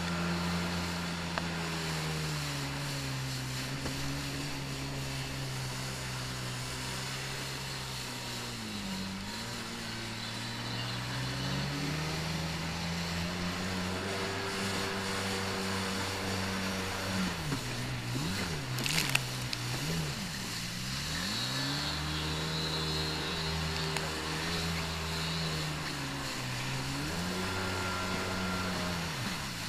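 Stand-up jet ski engine running hard, its pitch rising and falling as the throttle is worked, with a run of quick revs about two-thirds of the way through. A steady hiss of spray lies underneath.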